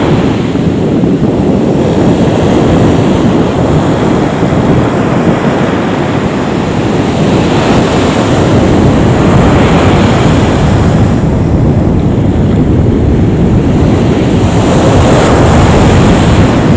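Boeing 737-800's twin CFM56-7B jet engines running close by, a loud, steady rush of engine noise that swells and eases slightly in its hiss.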